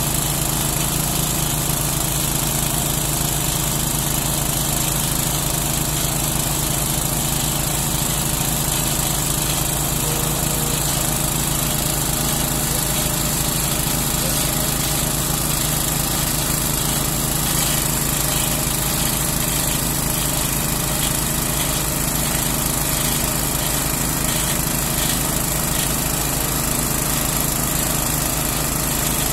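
Small engine of a well-drilling rig running steadily at constant speed, driving the drill pipe as the well is bored.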